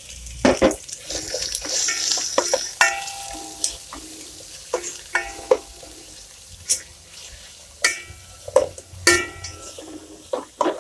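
Sliced onions frying in hot oil in an aluminium pot while a spatula stirs them, knocking and scraping against the pot so that it rings briefly after several of the strokes, over a light sizzle.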